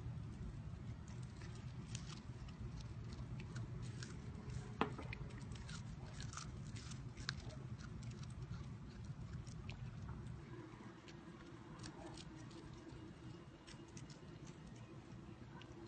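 A cat eating: irregular small crisp clicks and crunches of chewing over a low steady hum, with one louder click about five seconds in.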